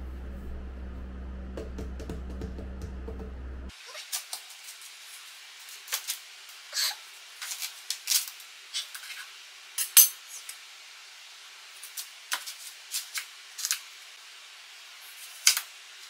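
Kitchen knife cutting up a watermelon on a bamboo cutting board: irregular sharp clicks and knocks as the blade goes through the rind and taps the board, one knock about ten seconds in louder than the rest. A steady low hum fills the first few seconds, then stops suddenly.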